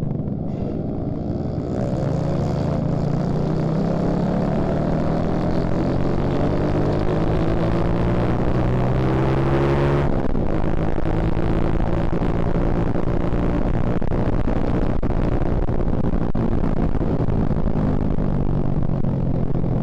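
Suzuki Shogun Axelo R motorcycle engine, a 125 cc single-cylinder four-stroke, pulling under throttle with its pitch rising steadily for about eight seconds. Halfway through the pitch drops sharply at a gear change, and the engine then runs on fairly steadily.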